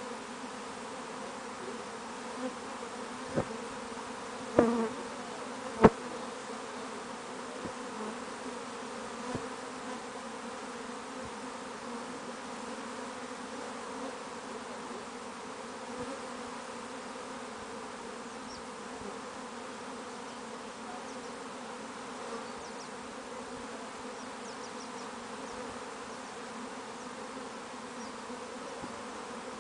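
A large swarm of honeybees buzzing in a steady drone as it settles into a wooden hive box. A few sharp clicks come in the first six seconds.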